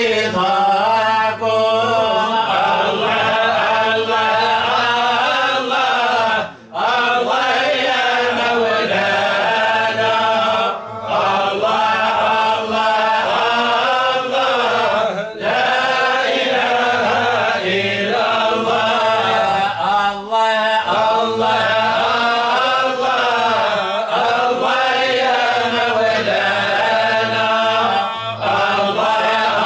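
Unaccompanied male voices chanting a Sufi devotional ode (qasida) in Arabic, a melismatic line that rises and falls, with brief pauses between phrases.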